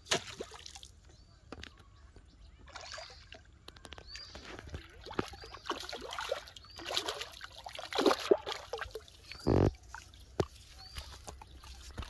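A hooked fish thrashing and splashing at the water's surface in irregular bursts, with water sloshing and dripping as it is drawn in and lifted out. A short dull thump comes late on.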